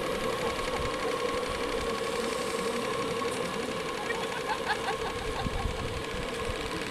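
Model steamboat steam plants running with a steady, even buzz that holds one pitch.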